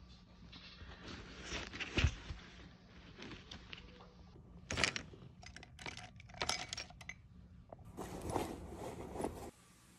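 Canvas tote bag rustling, with soft knocks and clicks as a camera is handled and packed into it. Near the end, fabric rustling and handling of a backpack being packed.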